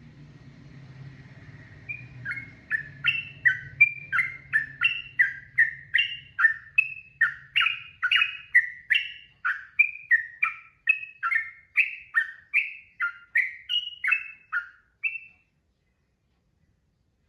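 Sooty-headed bulbul (trucukan) singing a long, fast run of short whistled notes, about two to three a second, most of them dropping in pitch. The run starts about two seconds in and stops abruptly near the end, with a faint low hum under the first few seconds.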